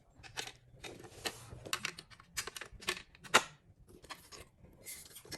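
Toy train set pieces being handled and fitted together: an irregular run of short clicks and light knocks, one louder knock a little past the middle.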